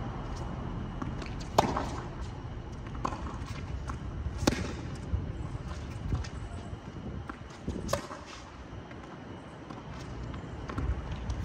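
Tennis ball being hit back and forth in a rally: sharp racket-on-ball pops about every three seconds, three in all, the first the loudest, with fainter ticks of the ball bouncing on the hard court between them, over a steady low background rumble.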